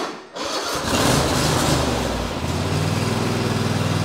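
Kohler 7000 series twin-cylinder lawn tractor engine cranked on choke. It catches within about a second and runs fast, then settles into a steady run about two seconds in. The quick start shows the freshly adjusted choke closing fully.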